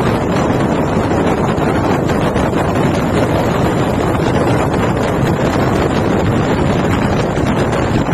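Loud, steady wind rush buffeting the microphone, mixed with the road noise of a moving MSRTC bus.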